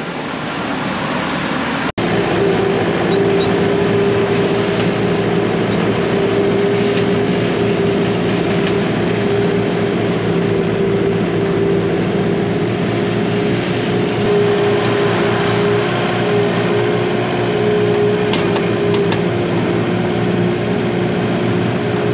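Skid steer loader engine running steadily, heard from inside the operator's cab, starting about two seconds in.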